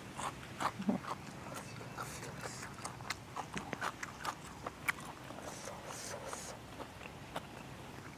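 Close-up mouth sounds of eating soft fermented pork sausage (naem): wet chewing with scattered lip smacks and short clicks.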